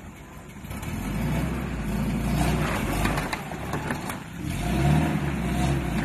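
Suzuki Samurai's four-cylinder engine revving under load as it climbs a rocky ledge. The revs build about a second in, ease briefly past the middle, then rise again.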